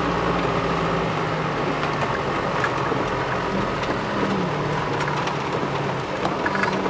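Car engine running steadily, heard from inside the cabin, its low hum shifting slightly in pitch now and then.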